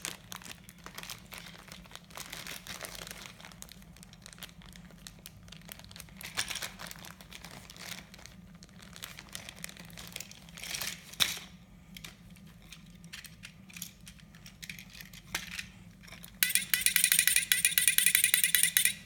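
Plastic toy packaging and parts being handled, crinkling with scattered light clicks. Near the end a loud, steady high buzz lasts about two and a half seconds and stops suddenly.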